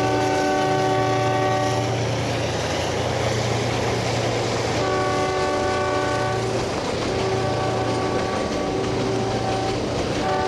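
A train horn sounds a series of long blasts over the steady rumble of the train running on the line. One blast ends about two seconds in, two more follow from about five seconds, and a short one comes near the end.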